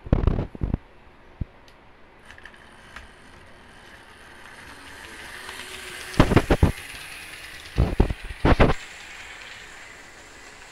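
A Frateschi HO-scale model diesel locomotive running along the track. Its small electric motor whirrs louder as it approaches over several seconds, with loud clattering from the wheels on the rails at the start and again around six and eight seconds. It is a freshly restored locomotive that has been snagging as it runs.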